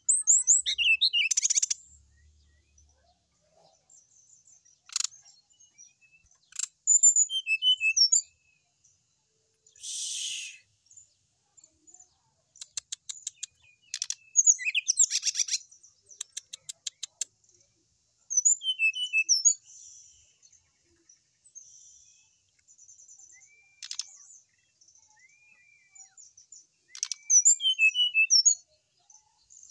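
Brown-chested jungle flycatcher singing high-pitched phrases in short bursts separated by pauses, with a fast run of repeated notes midway. It is a varied song packed with borrowed phrases ('full isian').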